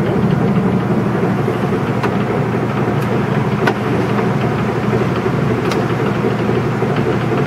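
Heavy-duty engine lathe running under power, a steady mechanical hum from its drive and gearing, with a few light clicks.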